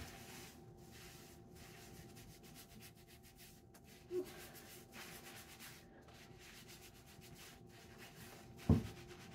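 Fingertips scrubbing shampoo lather through wet sisterlocks and over the scalp: a soft, steady rubbing with brief pauses.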